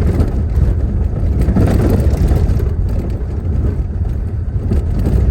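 Steady low rumble of a small car driving on the highway: engine and road noise heard from inside the cabin.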